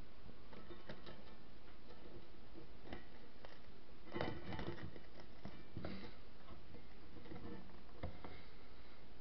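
Sparse light clicks and crackles as a small paper fire is worked with metal pliers against a stack of paper matchbooks, with a short cluster of clicks about four seconds in, over a steady low hum.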